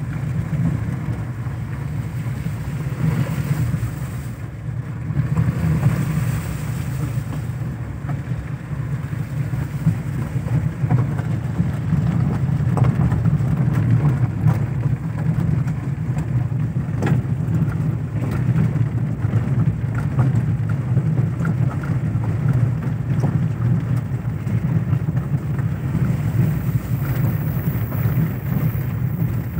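Car driving along a rough road, heard from inside the cabin: a steady low rumble of engine and tyres, with a few sharp clicks and knocks.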